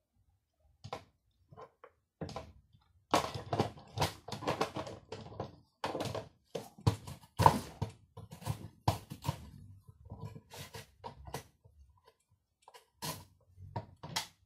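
Carrot being pushed back and forth across a plastic mandoline slicer's julienne blade: an irregular run of quick scraping slicing strokes, dense from about three seconds in and thinning out near the end.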